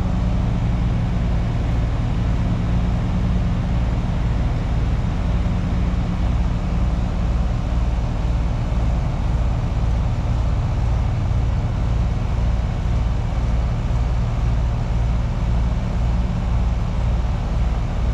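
Carrier heat pump outdoor unit running in cooling: a steady low hum from the compressor and condenser fan, with a slow, even pulse in the hum. The system is running normally on its new capacitor, with pressures of about 128 and 312 that are judged good.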